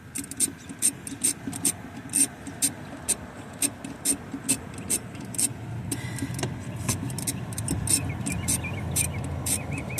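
Hand ratchet clicking in steady back-and-forth strokes, about two to three clicks a second, as a starter mounting bolt is loosened by hand. A low rumble joins about six seconds in.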